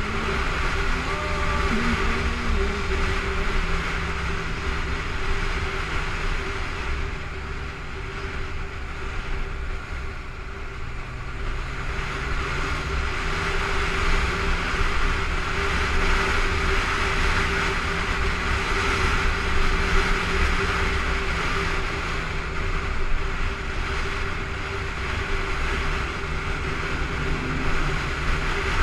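Honda motorcycle riding on a freeway between lanes of traffic: steady engine hum under a heavy rush of wind and road noise on the bike-mounted camera's microphone. It eases off for a few seconds around ten seconds in, then builds again.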